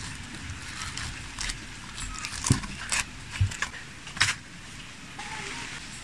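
Clear plastic film crinkling as it is handled, with irregular sharp crackles and clicks over a steady hiss.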